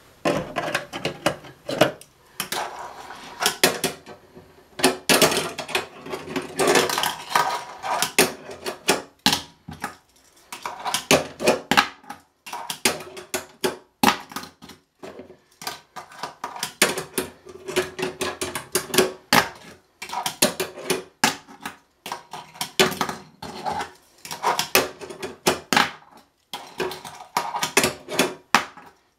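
A 29 mm Tech Deck fingerboard worked by fingers: its small wheels roll across a granite countertop and a plastic ramp and rail, with frequent sharp clacks as the board pops, lands and strikes the obstacle.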